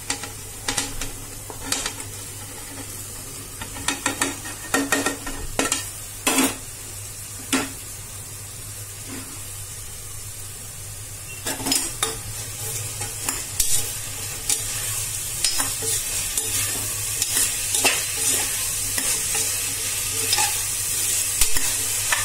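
Vegetables being tipped into a pressure cooker and stirred with a spoon, which knocks and scrapes against the metal pot. About halfway through a sizzle of frying rises under the stirring and grows louder toward the end.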